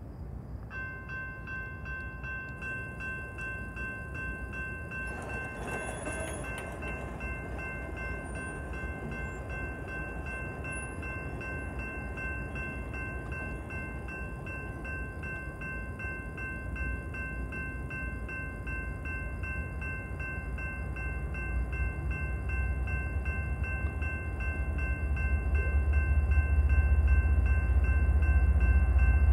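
GS Type 2 electronic crossing bell starts ringing about a second in as the crossing signals activate, sounding a repeating ding that holds several steady pitches. From about two-thirds of the way in, the low rumble of an approaching freight train builds and grows louder toward the end.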